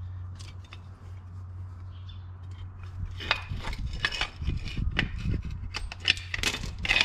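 Metal clicks and clinks of pliers working on steel drum brake shoes and their spring hardware, with scattered knocks that get busier in the second half, over a low steady hum.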